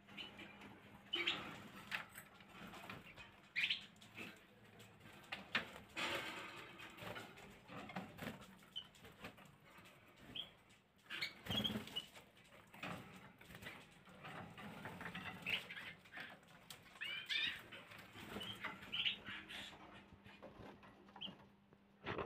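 Caged canaries, Gloster canaries among them, fluttering and hopping about their perches, giving irregular wing flaps and knocks with short chirps now and then. A faint steady low hum lies underneath.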